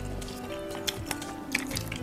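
Background music of held notes, with faint wet eating sounds and a few small clicks.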